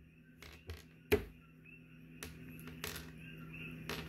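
Close handling noise from fingers working a fine titanium wire leader and its swivel: about six faint, separate clicks and rubs over a steady low hum.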